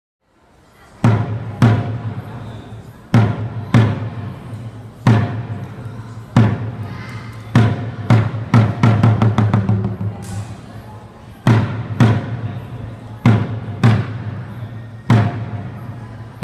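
Korean buk barrel drums of a pungmul troupe struck in a slow, spaced rhythm of deep strokes, mostly in pairs, with a quicker run of strokes about halfway through.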